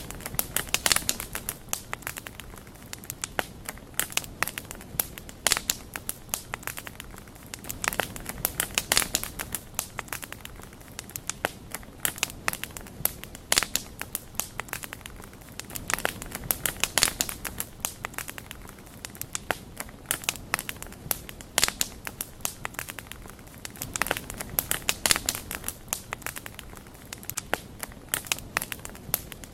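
Wood fire crackling: a constant stream of small, irregular snaps and pops over a low hiss, with clusters of louder pops every couple of seconds.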